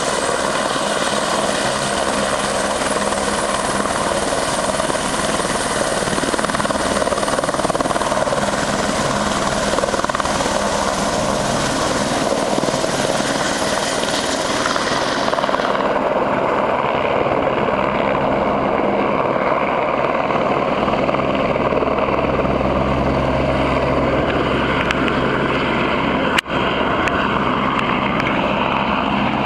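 A helicopter taking off, its turbine and rotor running loud and steady. About halfway through, the high whine falls away and the low rotor thump grows stronger.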